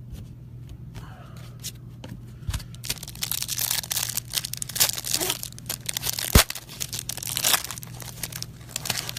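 Foil wrapper of a trading-card pack being torn open and crinkled, with rustling and handling clicks and one sharp snap, the loudest sound, about six seconds in. A steady low electrical hum runs underneath.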